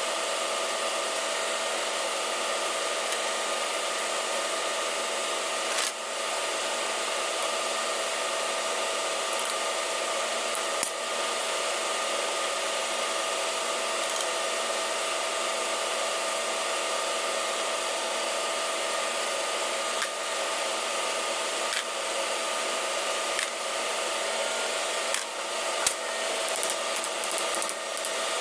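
Steady machinery drone of an engine-room workshop, with several steady tones in it. A few sharp clicks and knocks, most of them near the end, from hand tools working on a diesel fuel-injection pump clamped in a vise.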